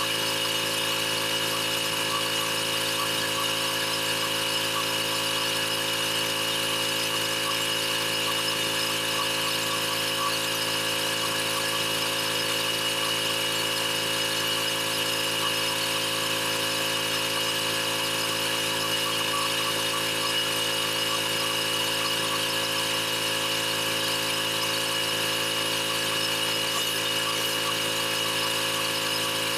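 Pressure washer running steadily with no change in pitch or level.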